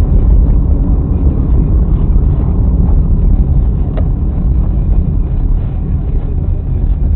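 Car driving, heard through a dashcam inside the cabin: a loud, steady low rumble of engine and road noise, with a single short click about four seconds in.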